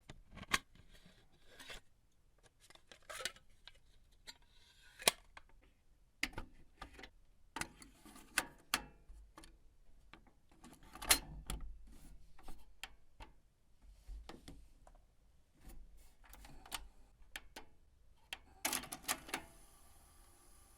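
Cassette player and plastic cassette being handled: a long run of separate sharp plastic clicks and clacks as the tape is fitted into the player. Near the end comes a quick cluster of clicks, then a steady faint hum from the transport motor as it starts running.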